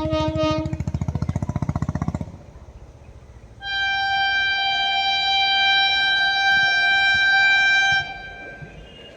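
Music with a fast pulsing beat plays until about two seconds in. After a short lull, a WAP-7 electric locomotive's horn sounds one long steady blast of about four seconds.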